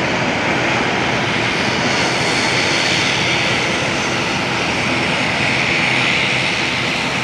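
Airliner engines running, a loud steady rush with a faint high whine.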